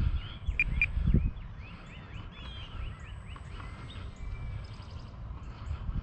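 Small birds chirping and calling, with many quick chirps and a couple of clearer whistled notes under a second in. A low rumble is loudest in the first second or so, then fades.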